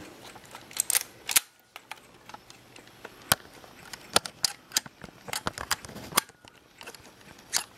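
Konica Auto S2 rangefinder camera being worked by hand: a string of sharp, irregular mechanical clicks from its knobs, levers and mechanism, with handling noise between them.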